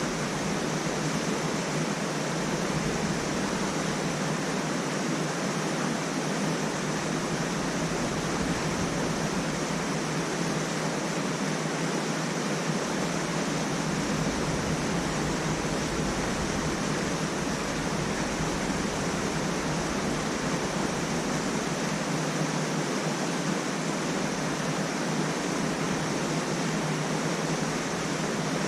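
Steady rushing of flowing water, an even unbroken wash that does not change.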